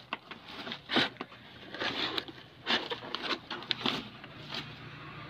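Plastic supplement pouch and bubble wrap crinkling and rustling as they are handled in a cardboard box, in irregular bursts, loudest about a second in and again near the three-second mark.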